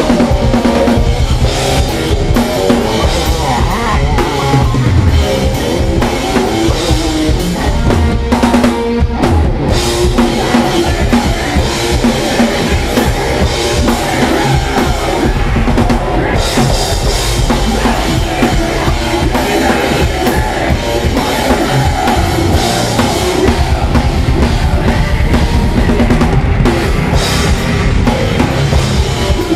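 Live rock band playing loud and steady: a drum kit, with bass drum and snare prominent, over electric guitar and bass guitar.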